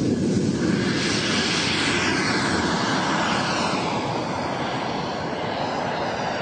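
Radio-controlled Futura model jet's engine running on its takeoff and climb-out: a loud, rushing whine that sweeps up and then down in pitch as the jet goes past, easing off slightly near the end.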